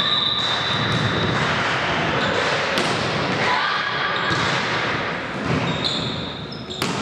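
Volleyball being played in a large sports hall: ball hits and thuds over steady, echoing hall noise, with a sharp ball strike near the end.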